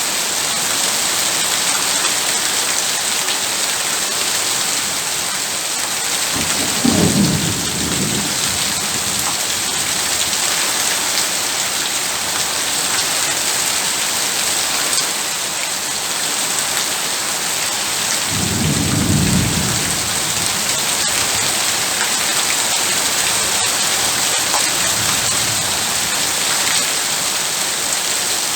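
Heavy rain pouring steadily, with two low rolls of thunder, about a quarter of the way in and again past the middle, and a fainter roll near the end.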